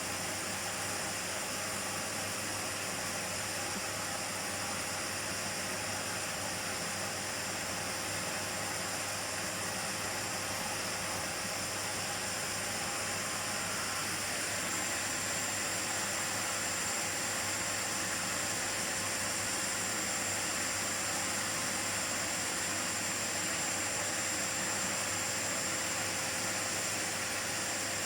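Miele vacuum cleaner running steadily: a continuous rush of air with a constant motor whine and a high whistle, which grows slightly louder about halfway through.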